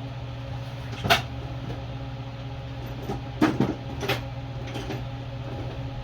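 Steady hum of a shop fan running overhead, with a few sharp clicks and knocks of hand tools working on a small engine's carburetor hose and linkage, about one second, three and a half seconds and four seconds in.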